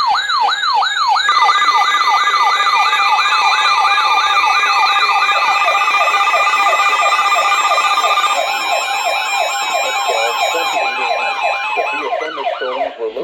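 Emergency alert attention signal for a tornado warning: several electronic siren tones sweep up and down quickly, about three times a second, layered with a steady high alert tone that stops about two-thirds of the way through. The sirens fade out near the end.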